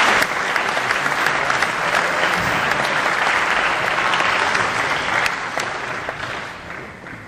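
Audience applauding steadily, a dense mass of clapping that fades away over the last couple of seconds.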